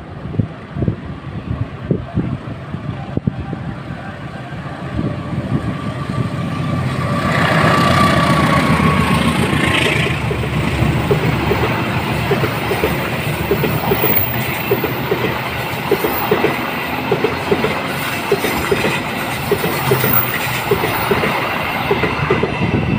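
Diesel-hauled passenger train passing close by. The locomotive's rumble builds to its loudest about eight seconds in, then the long string of carriages rolls past with a regular clickety-clack of wheels over the rail joints.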